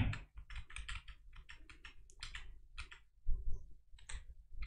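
Faint, irregular clicking of computer keys being typed on, with a few louder clicks a little past three seconds in.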